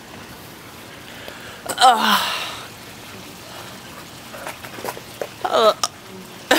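A woman with the hiccups, giving two voiced hiccups: a loud one with a falling pitch about two seconds in, trailing off into a breath, and a shorter one near the end.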